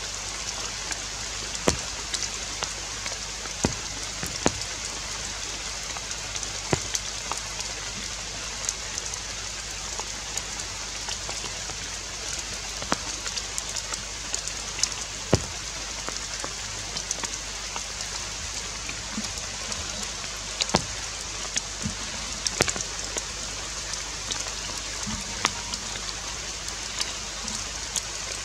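Rain falling on forest leaves: a steady hiss with sharp drips and taps scattered at irregular intervals.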